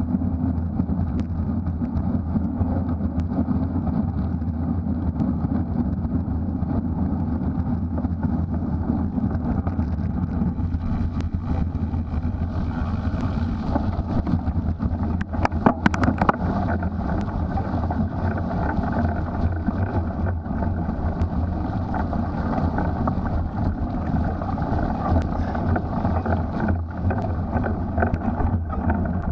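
Steady rumbling noise of a Specialized Crux Elite X1 cyclocross bike being raced over a muddy course: tyres on the ground and wind on the microphone. A brief clatter of clicks comes about halfway through.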